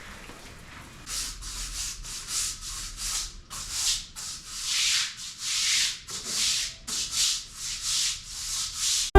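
Repeated scratchy rubbing strokes, about two a second, starting about a second in.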